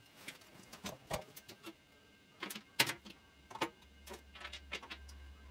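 Irregular light clicks and taps of small parts being handled on a motorcycle during radiator fitting, with a few sharper knocks around the middle.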